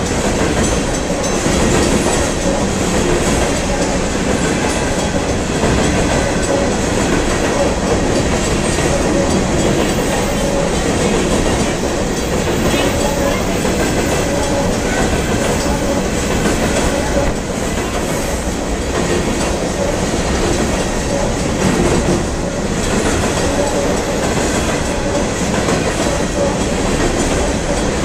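Coal train's hopper cars rolling past close by: a loud, steady rumble of steel wheels on the rails.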